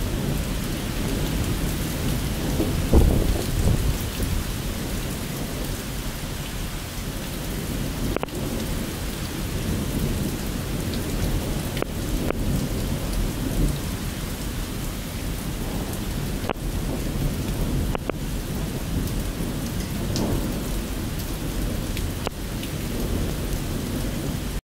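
Thunderstorm: rain falling steadily with rolling thunder, the loudest low rumble coming about three seconds in.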